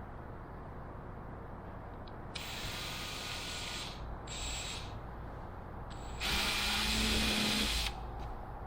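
Handheld power tool run in three short bursts, the last one the loudest and longest at nearly two seconds.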